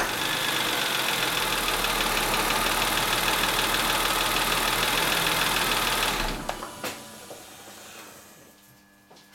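BMW M52 straight-six engine in an E39 running steadily at idle, with the unwanted noise the owner is recording as an engine problem. About six seconds in it stops, followed by a couple of clicks.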